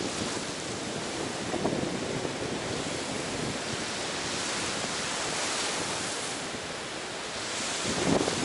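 Ocean waves washing onto a beach: a steady hiss of surf that swells a little past halfway through and again near the end.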